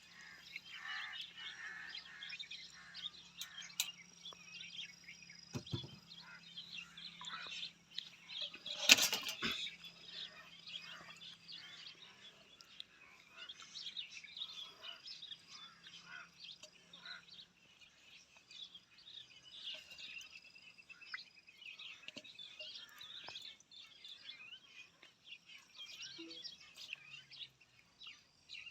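Many small birds chirping and twittering. A faint low hum runs under them and fades out about halfway through, and there is one loud sharp knock about nine seconds in.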